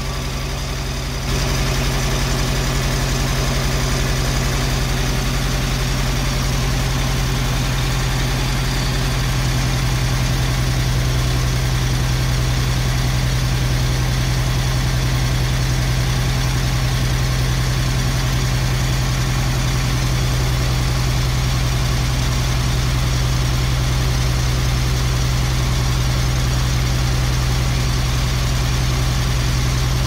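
1939 Graham's six-cylinder engine idling steadily under the open hood, running after its ignition starter switch was repaired. It grows a little louder about a second in, then holds an even idle.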